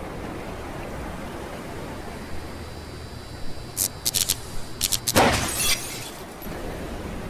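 Over a steady rushing noise, a few sharp high clinks about four seconds in, then a loud crash of shattering glass with bright tinkling pieces that stops within a second.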